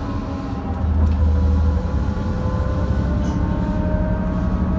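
Inside a BMC Procity city bus cruising at highway speed in sixth gear of its ZF Ecomat automatic gearbox: a steady low drone of engine and drivetrain, with the differential's whine running above it.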